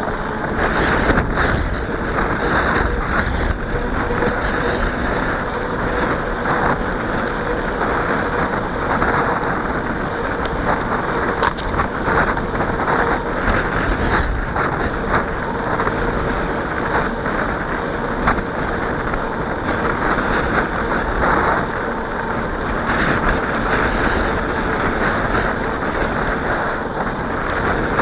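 Steady wind rushing over the microphone of a camera on a moving bicycle, with a faint steady hum and occasional brief crackles.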